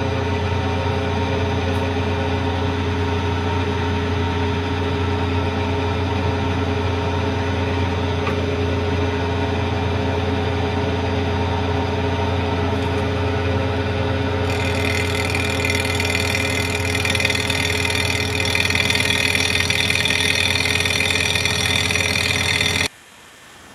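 Kearney & Trecker milling machine running with its end mill cutting along the top of an intake manifold under power feed: a steady machine hum with a harsher, higher cutting noise joining about two-thirds of the way through. It cuts off suddenly near the end.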